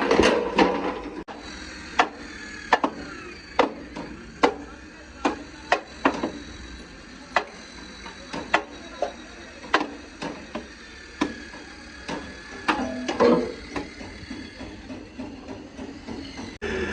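Hammer blows, about twenty sharp strikes at an uneven pace of roughly one or two a second, some with a short ringing after them.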